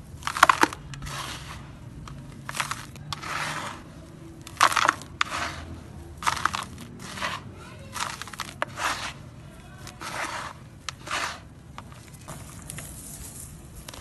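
Dry, dusty grey sand clumps being crushed and crumbled between the fingers, in a run of irregular crunchy bursts about every half second to a second, dying down over the last few seconds.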